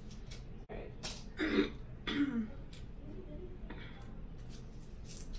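A woman clears her throat with short rough coughs, about a second in and again around two seconds in; she is under the weather.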